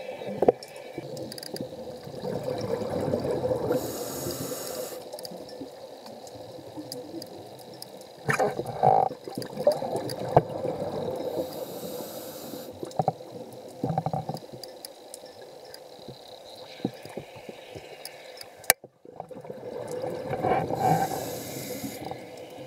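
Underwater sound picked up through a camera's waterproof housing: muffled water movement and bubbling that swells and fades, with scattered sharp knocks and clicks.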